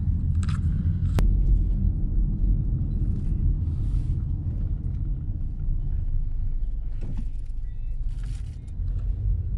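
Steady low road rumble inside a moving car's cabin, with a sharp click about a second in and a few faint ticks near the end.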